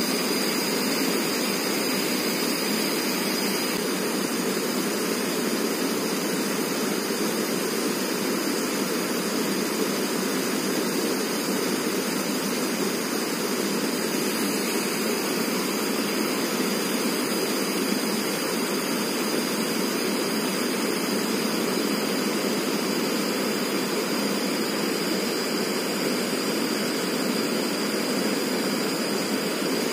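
Steady rushing of a fast-flowing small river, an even, unbroken roar of water.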